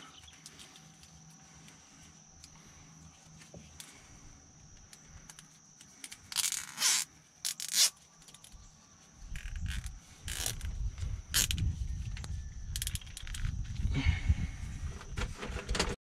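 Nylon zip ties being pulled tight through their locking heads with a quick ratcheting zip, twice in a row about six and seven and a half seconds in. From about nine seconds on, low handling rumble and rustle with a few more short scrapes.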